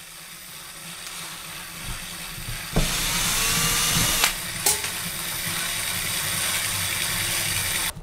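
Cordless drill/driver spinning out the old switches' mounting screws. It gets louder partway in, pauses briefly with a click a little past the middle, then runs again and cuts off suddenly near the end.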